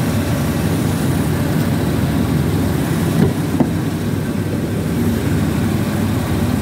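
Range Rover Sport's 2.7-litre TDV6 V6 diesel engine idling steadily, with two light clicks a little over three seconds in.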